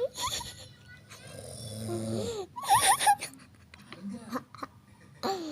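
Snoring: a long low snore that builds for over a second, starting about a second in. Short high squeaky sounds glide up and down around it.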